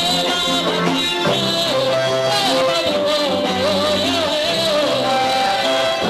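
Church choir singing a worship song over instrumental backing, the melody line wavering and continuous.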